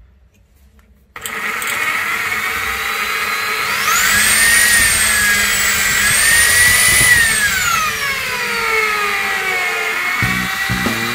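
Bosch GSB 500 RE corded 500-watt impact drill starting about a second in. Its motor whine rises in pitch as it speeds up, dips briefly, rises again, then falls away near the end. Background music comes in at the very end.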